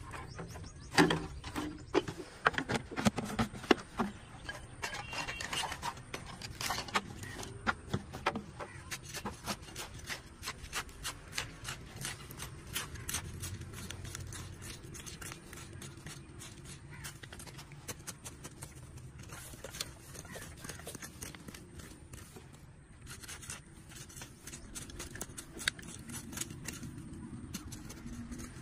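Dry, clumpy soil being dug out with a small hand tool: a run of short scrapes, crunches and knocks as the earth is loosened and pushed aside, loudest in the first few seconds.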